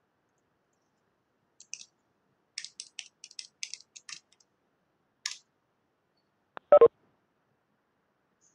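Computer keyboard typing: a run of about a dozen light key clicks as a username and password are typed. Near the end comes one louder, deeper click, the loudest sound here.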